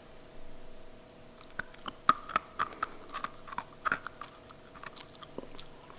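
A person chewing a piece of dry dog kibble: a run of sharp, irregular crunches starting about a second and a half in and fading out near the end.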